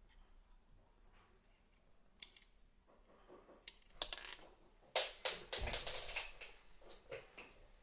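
Small metal parts of an Aspire Neeko rebuildable tank atomizer and ceramic-tipped tweezers handled and set down on a wooden desk: a scatter of light clicks and taps, busiest from about four to six seconds in.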